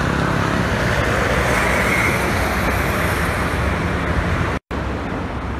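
Toll-road traffic passing at speed, a coach and a minibus among it: a steady rush of tyre and engine noise that swells about two seconds in. The sound drops out for an instant near the end, then the traffic noise carries on.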